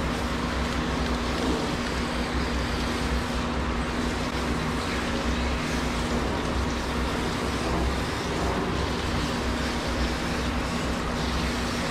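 Water spraying from a hand-held shampoo nozzle onto a small dog in a stainless steel grooming tub, a steady hiss and splash, over the constant hum and rush of a running pet crate dryer's blower.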